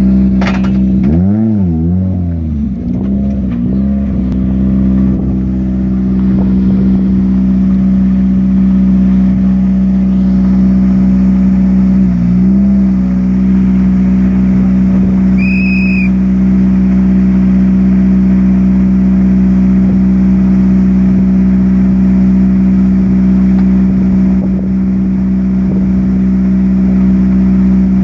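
Ford Fiesta R5 rally car's turbocharged four-cylinder engine idling steadily, with a few quick throttle blips in the first three seconds and another short blip about twelve seconds in. A short high beep about sixteen seconds in.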